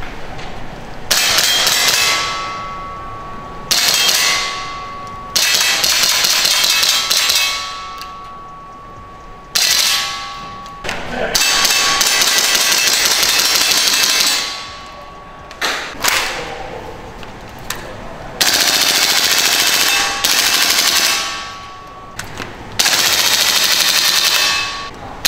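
KWA Kriss Vector gas blowback airsoft gun firing full-auto in about ten bursts of one to three seconds each, every burst a rapid rattle of shots that fades in the room's echo. A metallic ringing tone sounds through several of the bursts.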